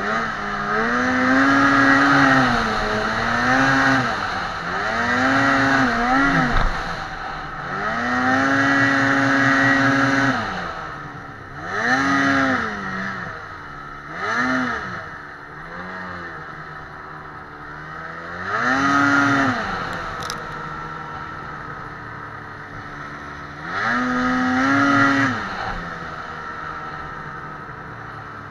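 Ski-Doo 800R two-stroke twin snowmobile engine revving in about eight throttle bursts while riding through snow, each one climbing in pitch, holding briefly and dropping back. Between bursts it falls to a lower run, and it settles to a quieter steady run near the end.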